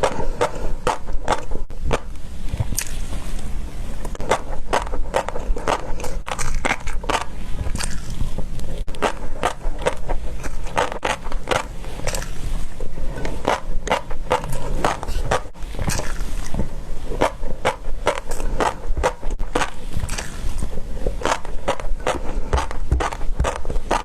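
Close-miked chewing of fish roe: dense, irregular crunching and popping clicks, several a second, over a low steady hum.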